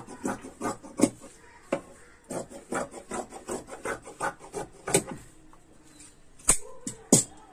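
Large tailor's shears cutting through several folded layers of cloth: a run of short snipping strokes, about two or three a second, followed by a few louder sharp clicks near the end.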